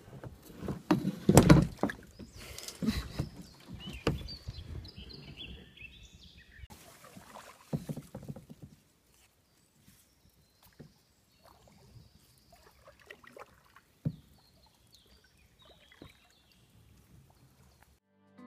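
Kayak paddling: paddle blades dipping and splashing in the water, with knocks of the paddle against the kayak's hull, loudest in the first few seconds, then fading to faint drips and occasional knocks.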